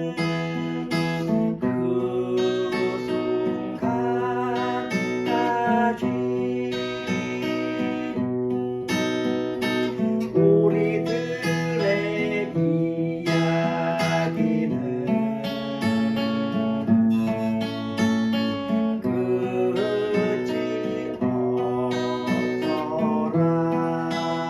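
Acoustic guitar playing a slow tune solo, strummed chords with picked melody notes over them, the chords changing every second or two.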